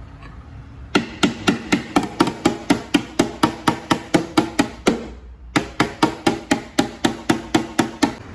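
Body hammer tapping a car body panel in a quick, even rhythm of about four strikes a second, each strike ringing briefly. The tapping breaks off for half a second about two-thirds through, then resumes.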